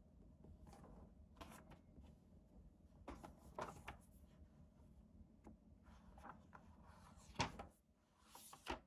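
Pages of a paper planner being turned and pressed flat by hand: faint paper rustles and light taps, the loudest about seven seconds in, with a short swish of a turning page near the end.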